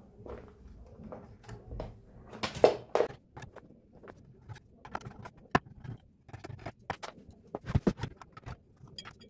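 Screwdriver working screws out of a circuit board inside an amplifier's metal chassis: irregular clicks, taps and short scrapes, with the loudest bunches about two and a half seconds in and again near eight seconds.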